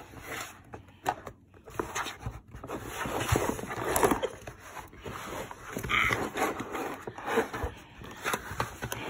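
Hands squeezing, scooping and scraping kinetic sand in a plastic tray close to the microphone: irregular scratchy crunching and rustling.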